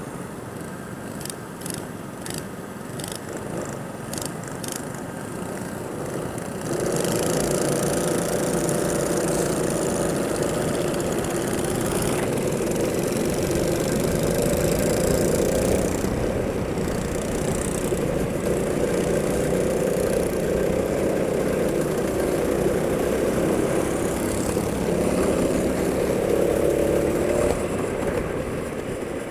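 Go-kart engine running, quieter at first with a few sharp clicks, then louder and steady from about seven seconds in until just before the end.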